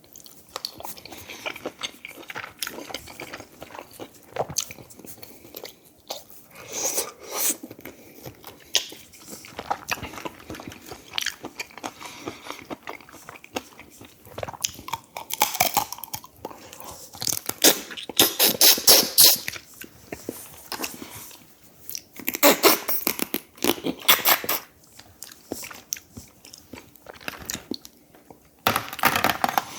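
Close-miked eating: biting, crunching and chewing of food, with several louder, longer bursts in the second half.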